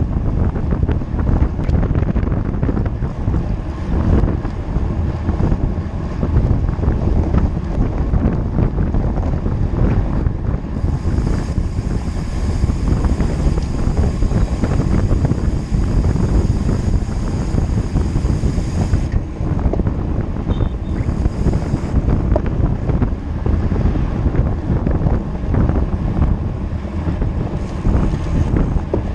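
Wind buffeting the microphone of a camera riding on a road bike at speed, over a steady low rumble. A faint high steady whine joins in for several seconds midway.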